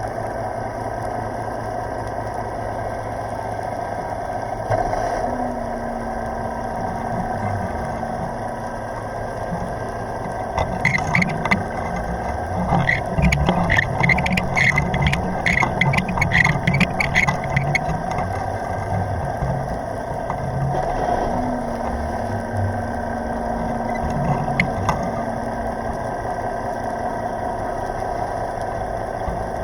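Steady hum of a boat engine picked up underwater by a camera in its housing, with a low tone that comes and goes twice and a spell of rapid clicking and rattling in the middle.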